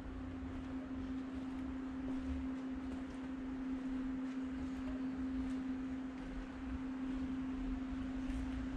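CZ Loko DualShunter 2000 hybrid shunting locomotive standing with its equipment running: one steady, even hum that does not change pitch, over a low uneven rumble.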